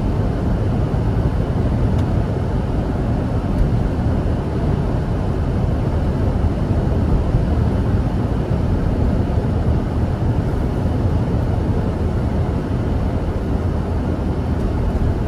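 Steady low rumble of a car's road and engine noise, heard inside the cabin while driving.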